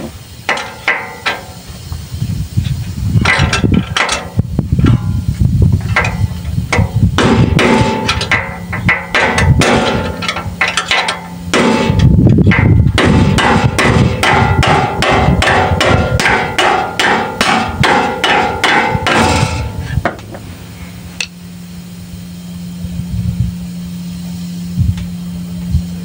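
Hammer blows on steel knocking out a shock absorber mounting bolt: sharp ringing strikes in runs, quickening to about three a second through the middle. The blows stop about 20 seconds in, leaving a steady low hum.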